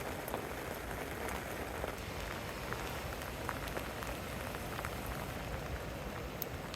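Steady rain falling, with many small scattered drop ticks.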